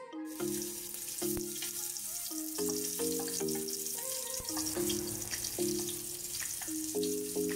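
Chopped garlic hitting hot oil in a frying pan and sizzling. The sizzle starts suddenly under a second in and keeps up steadily, over background music.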